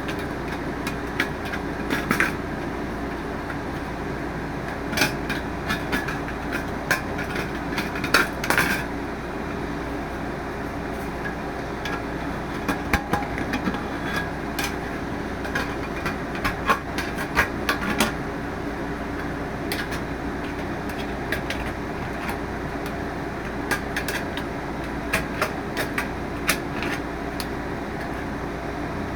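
Hand deburring tool scraping around the burred edge of a freshly cut hole in metal: short, irregular scrapes and clicks of the blade on the metal edge, over a steady background hum.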